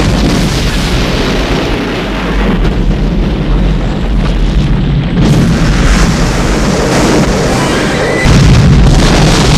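Film soundtrack of a jet airliner exploding: a heavy, rumbling blast with roaring fire, rising in the highs about five seconds in and surging louder about eight seconds in, with film score music underneath.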